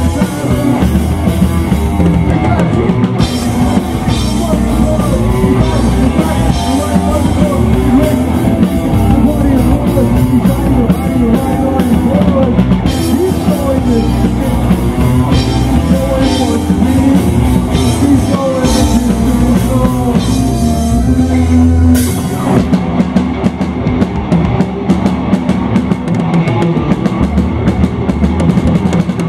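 A live student rock band plays with drum kit, electric guitars and keyboard. About 22 seconds in, a held low note ends and the band goes into a busier, cymbal-heavy section.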